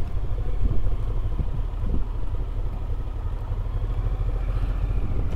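Motorcycle engine running at low speed, heard on board as a steady low rumble.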